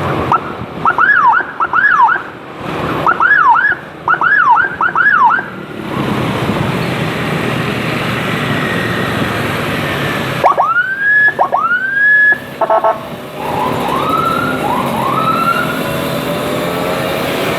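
Escort motorcycle's electronic siren switching between patterns: bursts of quick up-and-down sweeps, then two long rising whoops, then short rising chirps. Wind rush and road noise run underneath.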